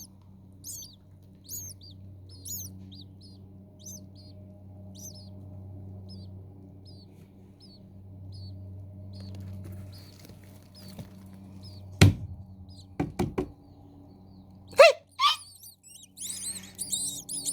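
Nestlings' thin, high-pitched begging cheeps, about one a second at first and growing fainter, over a low steady hum. A sharp knock comes about twelve seconds in, then a quick run of knocks and a brief rising squeak. Near the end, many cheeps overlap at once as the chicks beg together.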